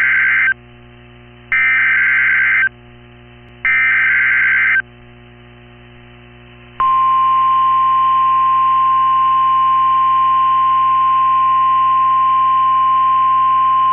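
Emergency Alert System SAME header on NOAA Weather Radio: three screeching digital data bursts about a second long with short pauses between them, the first already under way. About seven seconds in, the steady single-pitched 1050 Hz weather radio warning alarm tone starts and holds, announcing a tornado watch.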